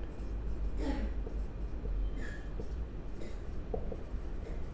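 Marker pen writing on a whiteboard: faint scratchy strokes with a brief squeak about two seconds in, over a steady low hum.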